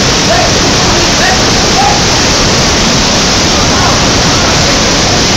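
Waterfall rushing, a loud, steady wash of falling water. A few faint, short rising-and-falling calls sound over it in the first two seconds.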